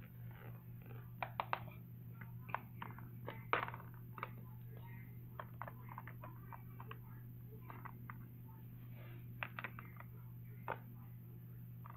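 Small plastic toy figures clicking and clattering as they are set into a plastic toy car: a scatter of light, irregular knocks, over a steady low hum.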